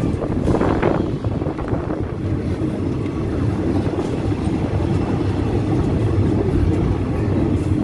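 Passenger train running at speed, a steady rumble of wheels on rails and wind past an open carriage door. A short rustle about a second in, from a denim sleeve brushing the microphone.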